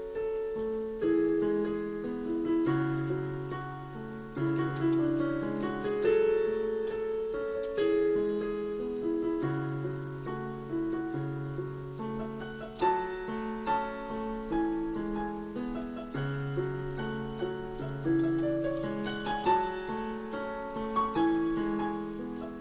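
Background instrumental music: a calm, repeating pattern of struck notes that fade away, over a low bass note that recurs every few seconds.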